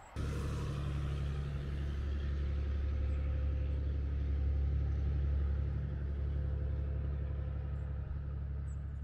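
A motor engine running steadily, a low rumble with a hiss over it that swells slightly toward the middle.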